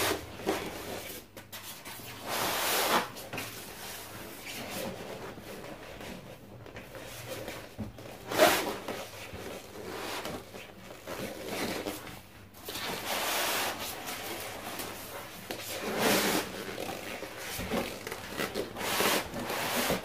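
Styrofoam packing blocks rubbing and scraping against a cardboard carton in several separate bursts as the packed appliance is worked out of its box.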